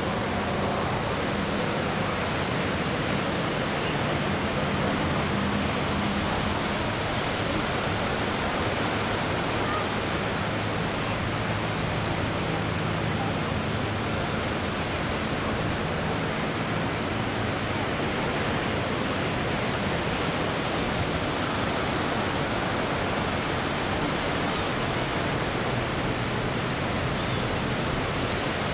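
P-51D Mustang's Packard Merlin V-12 engine droning during an aerobatic routine: a faint low hum that shifts a little in pitch, under a steady rushing noise.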